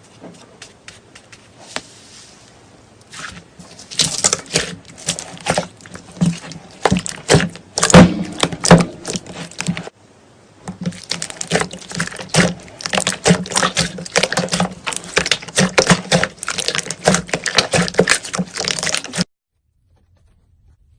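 Slime being squeezed and worked, a dense run of small pops, clicks and crackles. The crackling breaks off about halfway, starts again, then stops suddenly near the end.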